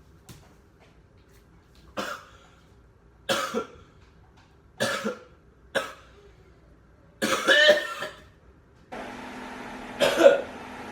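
A person coughing in a series of separate fits, about six, a second or two apart, the one near three-quarters of the way through the longest: staged coughing for a fake coughing-up-blood scare. A steady hiss starts about nine seconds in.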